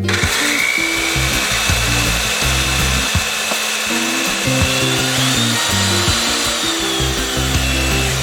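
Electric power tool running with a steady whine whose pitch rises about halfway through and then falls again, starting and stopping abruptly, over background music.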